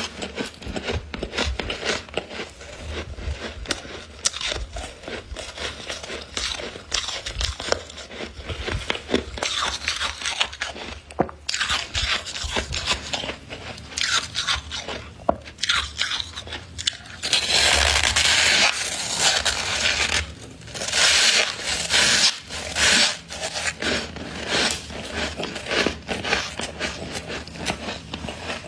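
Metal spoon scraping and crunching through thick, packed freezer frost, a dense run of small crunches. About two-thirds of the way through it turns into a louder, steadier scrape for a few seconds.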